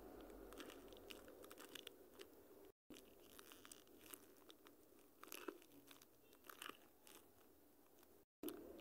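Faint crinkling and small clicks from homemade paper-and-tape squishies being handled and squeezed, with two brief drops to dead silence.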